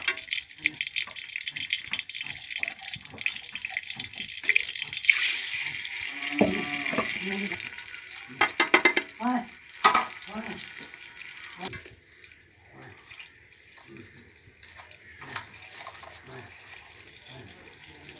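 Hot oil sizzling in a metal pot as tomato pieces and whole spices fry. The sizzle surges about five seconds in and dies down after about twelve seconds, with a few sharp metallic clatters in the middle.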